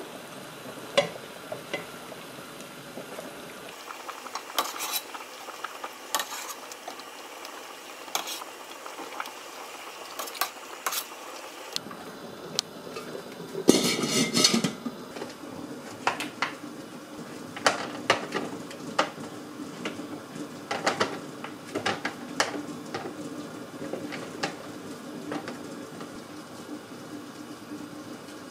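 Scattered clinks and knocks of a utensil against a stainless steel stockpot of boiling broth while the scum is skimmed off, with a louder clatter about fourteen seconds in as the lid goes onto the pot.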